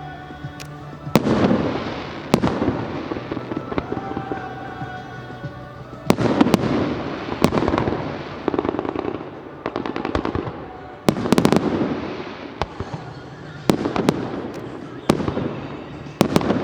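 Fireworks shells bursting overhead in a series of loud bangs, each followed by a long rumbling echo and crackle, with music playing underneath.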